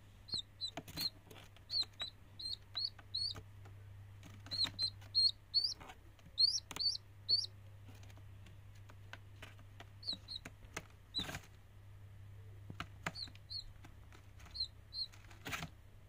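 Young chick peeping: short, high, falling cheeps in quick runs of two to four, over and over, with light taps and a couple of louder knocks between them. A low steady hum runs underneath.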